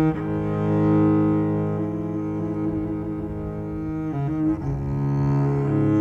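Solo cello played with the bow: long, sustained notes that change pitch a few times.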